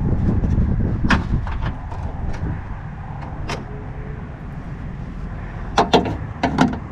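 A few sharp clicks and knocks from plastic and metal parts inside an open car door as its wiring harness is moved out of the way, over a steady low rumble.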